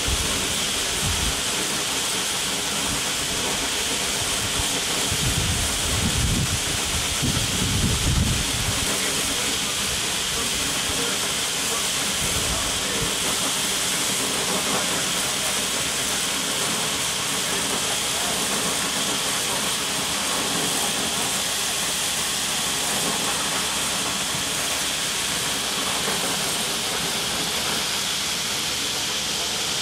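Steady, loud hiss of a compressed-air spray nozzle blasting grout onto a rock face, with some low rumbling about six to eight seconds in.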